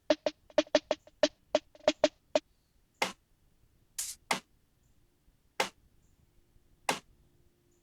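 Drum samples played back from music production software: a fast run of short pitched drum hits, then single sharp snare-type hits about a second apart.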